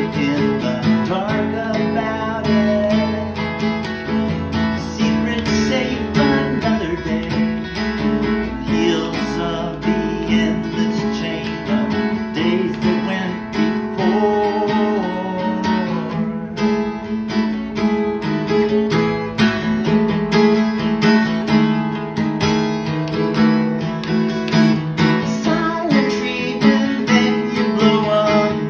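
Acoustic guitar strummed steadily with a capo on the neck, accompanying a man singing a song.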